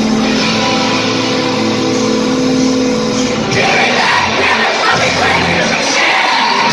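Rock band playing live in a concert hall, recorded loud from the crowd: held, sustained notes for about three and a half seconds, then the full band with guitars and drums comes in.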